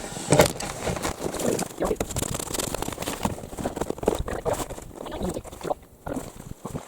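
Footsteps crunching in snow, irregular crackly steps and knocks with no engine running.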